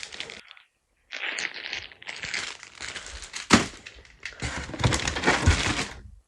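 Toy packaging being handled and rummaged through: crinkling and rustling, with one sharp snap about three and a half seconds in.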